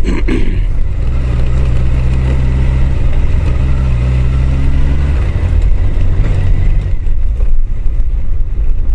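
Honda CBR1000F's inline-four engine running at a steady pitch, heard through the rider's helmet microphone, with its note changing about five seconds in.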